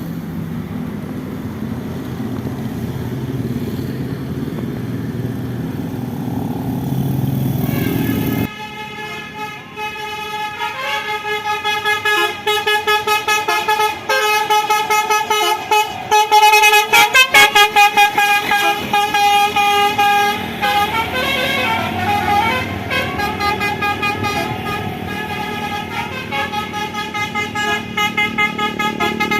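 A bus's basuri melody horn playing a tune of rapid, pulsing notes that step up and down in pitch, starting about eight seconds in. Before it, only a low engine rumble.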